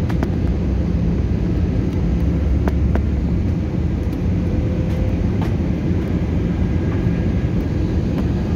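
Steady low roar of an airliner's engines and airflow heard inside the passenger cabin during the descent to land.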